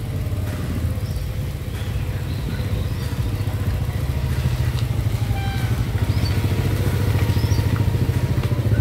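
Steady low rumble with rapid flutter from riding a folding bicycle along a village lane. A small car drives up and passes close by near the end, and the sound grows somewhat louder as it does.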